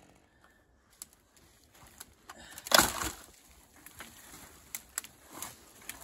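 Scattered snaps and knocks of wood and spruce branches, with one loud, sharp crack about three seconds in.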